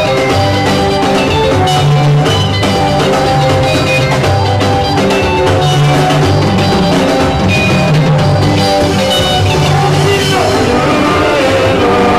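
Live band playing Congolese rumba: electric guitar lines over bass guitar and drums, with singing coming in near the end.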